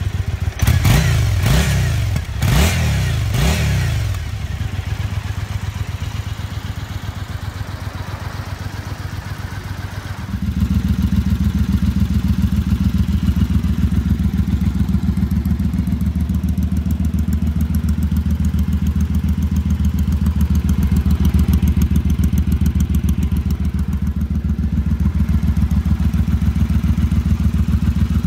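2015 Triumph Speedmaster's parallel-twin engine on its very quiet stock exhaust, revved several times and then idling. About ten seconds in it switches to the same engine idling through British Customs Cocktail Shaker slip-on mufflers, steady, louder and throatier, with its sound concentrated low.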